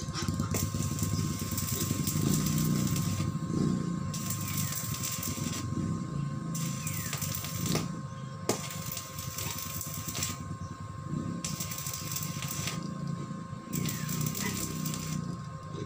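Electric arc welding on the steel gate frame: a crackling hiss that comes in runs of a second or two, with short breaks between them.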